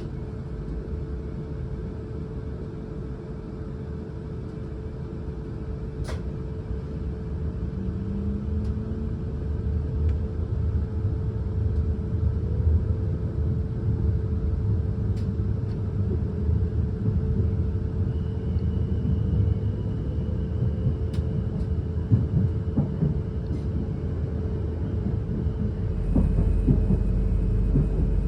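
Class 444 Siemens Desiro electric multiple unit running along the line as heard from inside the carriage: a steady rumble of wheels on track under a steady electric hum, growing louder through the first half. A few sharp clicks sound, and a deeper rumble joins near the end.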